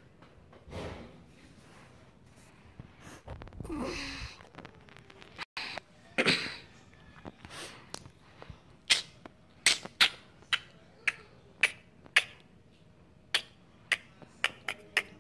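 A few soft breathy puffs, then from about nine seconds in a string of sharp clicks or taps at roughly two a second, some louder than others.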